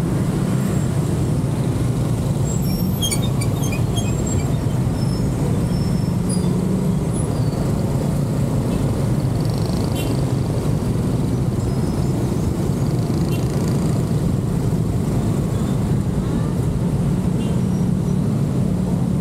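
Steady road and traffic noise of a car driving through city streets, a low even rumble with no sharp events. A few faint high ticks or chirps come about three to four seconds in.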